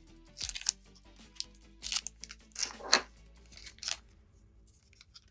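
Plastic trading-card packaging crinkling and being torn in several short bursts, stopping about four seconds in, over soft background music.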